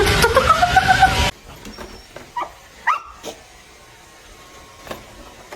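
A dog whining and yipping in a few short rising cries, starting over background music that cuts off about a second in.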